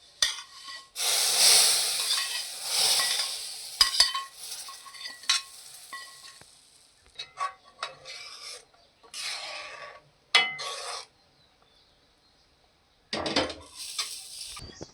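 Ghee-roasted vermicelli being scraped from the pan into boiling milk and stirred with a metal spoon: a couple of seconds of hissing and scraping about a second in, then intermittent scraping and sharp clinks of the spoon against the pot.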